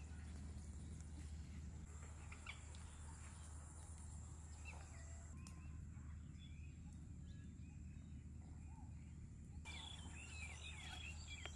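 Faint ambience: small birds chirp now and then, mostly in the middle and near the end, over a steady high-pitched insect drone and a low rumble.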